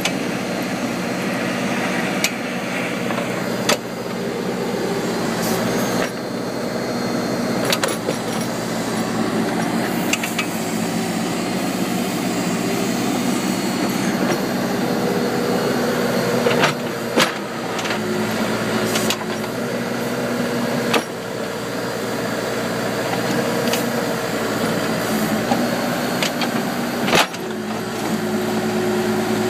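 Case 580M backhoe's diesel engine running steadily, its note shifting up and down now and then as the hydraulics are worked, with several sharp clicks or knocks along the way.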